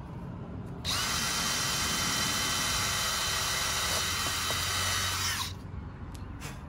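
Cordless drill drilling into the fiberglass transom of a ski boat for a third mounting screw. It starts abruptly about a second in, runs as a steady high whine for about four and a half seconds, and stops.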